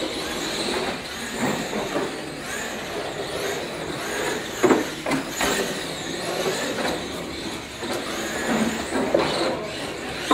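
Several R/C monster trucks racing, their motors whining and rising and falling in pitch as the throttles work. There are a few sharp knocks as trucks hit ramps or land.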